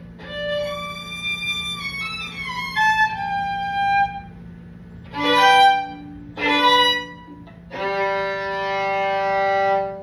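Unaccompanied violin ending a piece: a falling melodic line, then two short, loud bowed chords, then one long held final note that stops just before the end.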